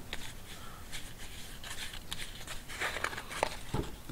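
Faint handling noise of hands rubbing and turning a leather sling while working mink oil into it, with a few light taps and a soft knock near the end.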